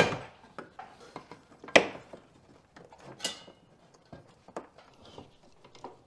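Screwdrivers prying at a plastic parking brake cable clip, working it out of the car's underbody: scattered tool clicks and scrapes. Three sharper clacks land at the start, near two seconds, and just past three seconds.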